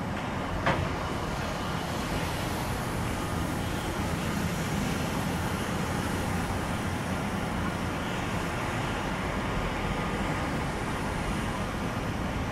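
Steady low drone of a river tour boat's engine under way, with one sharp click about a second in.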